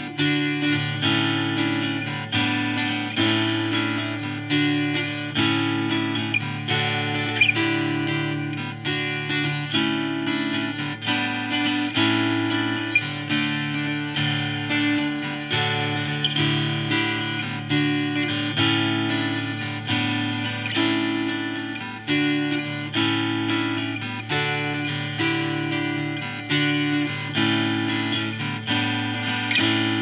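Intro music: acoustic guitar playing a steady strummed and plucked pattern.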